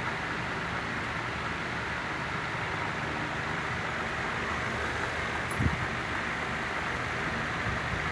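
Steady rushing background noise with a single short low thump a little past halfway.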